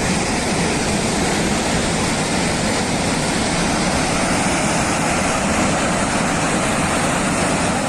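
Steady, unbroken roar of a torrent of floodwater rushing downhill.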